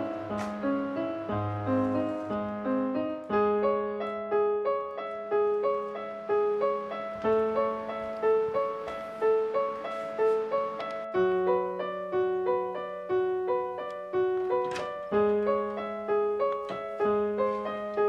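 Background piano music playing a steady, repeating figure of notes.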